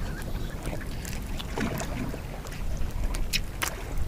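Wind rumbling on the microphone in a small open boat at sea, with scattered light clicks and taps as fishing tackle is handled.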